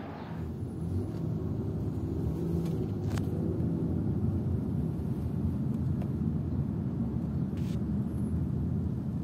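Steady low rumble of road and engine noise inside a moving car's cabin, with a faint click about three seconds in.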